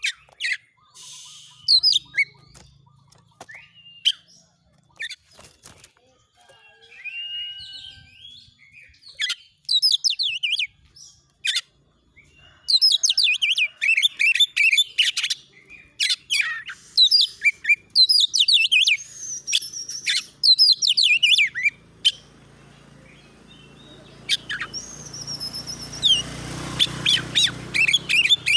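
Oriental magpie-robin (kacer) singing. The first half holds scattered sharp chirps and short phrases; after that come long, loud runs of rapid, varied notes, the forceful 'shooting' song of an agitated kacer in fighting mood. A low rumbling noise builds up under the song near the end.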